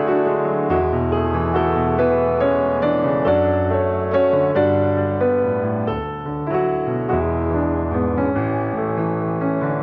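Gentle piano music: a slow melody of struck notes over sustained bass notes that change every second or two.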